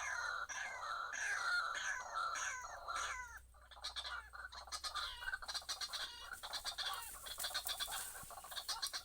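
White-breasted waterhen (ruak-ruak) calling: repeated harsh, falling notes about twice a second, turning after about three seconds into a faster, rattling chatter.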